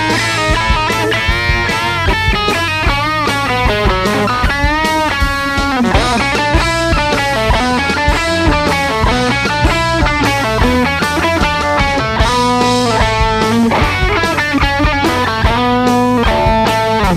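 Rock music with a distorted electric guitar to the fore, playing chords and bent notes over bass and drums.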